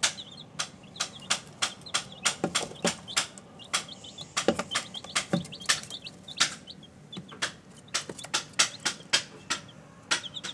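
Week-old chicks peeping in short high chirps. Frequent irregular sharp taps stand out as the loudest sounds.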